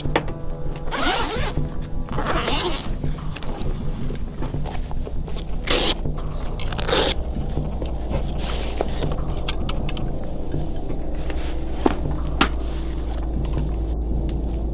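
Zippers on a padded soft rifle case pulled open in several long strokes over the first seven seconds or so, heard over background music.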